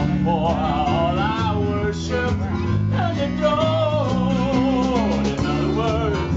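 A live band playing a song: a man sings through a microphone over electric guitar, bass guitar, keyboard and drums.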